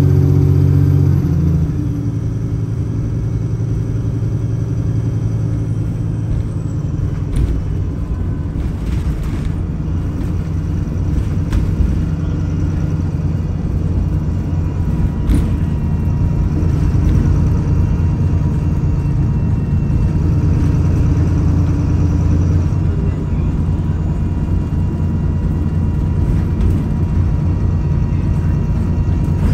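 VDL SB200 single-deck bus on the move, heard from the rear saloon: a steady low engine and road rumble, with a few sharp rattles and knocks from the body and fittings. About a second and a half in, the steady engine note drops away into a rougher rumble.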